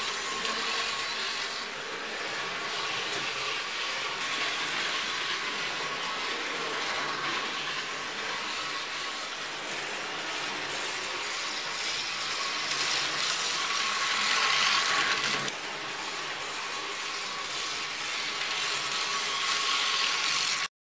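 Märklin HO scale model locomotive running on the track: a steady electric-motor hum with the rattle of its wheels on the rails, its motor turning again on freshly replaced brushes. It swells louder as the train passes close, drops off suddenly about two-thirds of the way through, then builds again.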